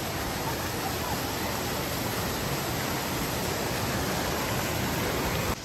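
Steady rushing of flowing water, a constant even hiss that stops abruptly near the end.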